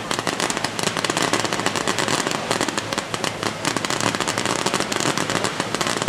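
Fireworks going off in a dense, unbroken crackle of rapid cracks and pops, with no pause.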